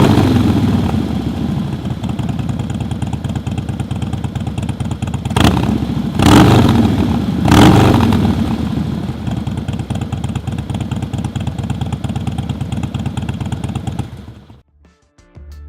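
Harley-Davidson V-twin motorcycle engine breathing through a Bassani Road Rage 2-into-1 short exhaust, idling with a loping rumble, blipped three times in quick succession partway through, then settling back to idle before the sound stops near the end.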